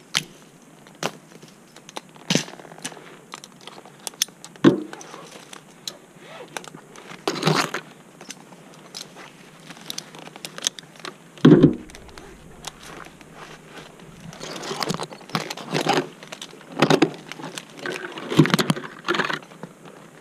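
Climbing gear and steel cable being handled: irregular metallic clinks and clicks of carabiners and cable hardware, knocks against the branches, and rustling of clothing and leaves, with sharper knocks a little before 5 s and around 11 s in.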